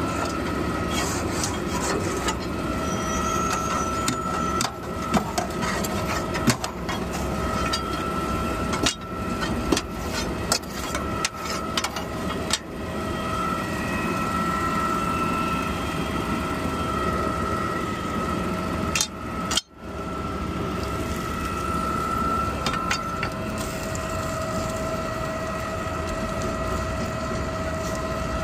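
Garbage truck engine running steadily with a constant whine, while a long steel bar scrapes and knocks against the truck's metal body as stuck debris is pried out. There is a run of sharp metal knocks from about 4 to 13 seconds in, and another pair near 19 seconds.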